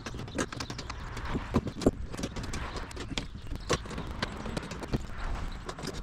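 Irregular light metal clicks and knocks as nuts are hand-tightened on a solar panel's mounting brackets and the panel frame is handled.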